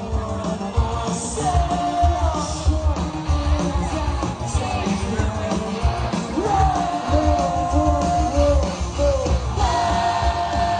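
Live pop-rock band playing at full volume with a lead vocal, heard from within the crowd. Heavy pulsing bass and drums run under the singing, with long held sung notes in the middle and near the end.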